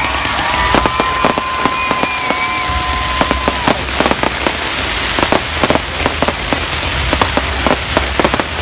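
Fireworks crackling, with many sharp pops in quick succession. A steady whistling tone runs over the first three and a half seconds and then stops.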